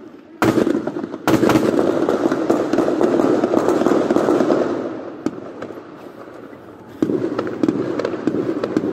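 Heavy gunfire: many rapid, overlapping shots crackling almost without pause, starting sharply under a second in. It eases for a couple of seconds past the middle, then picks up loud again near the end.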